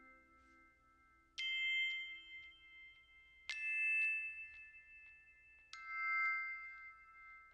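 Background music: three bell-like chime notes struck about two seconds apart, each ringing on and fading slowly.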